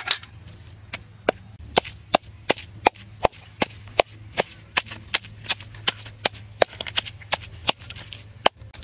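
Wooden pestle pounding red chillies and garlic in a wooden mortar, a steady run of sharp knocks about two and a half a second.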